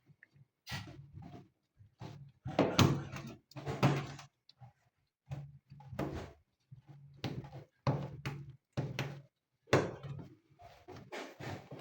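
Irregular knocks, thumps and rubbing as a washing machine's rubber door gasket is handled and worked into place around the door opening.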